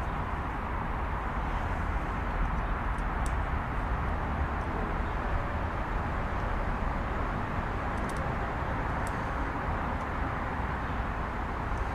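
Steady background rumble and hiss, with a few faint light clicks.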